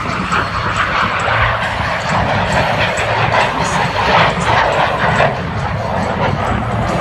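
A-4 Skyhawk jet flying low along the runway and climbing away, its jet engine a steady loud roar and hiss with no breaks.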